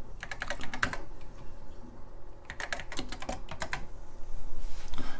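Keystrokes on a TRS-80 Model I keyboard, typing short commands in two quick bursts: one about a quarter-second in, another about two and a half seconds in.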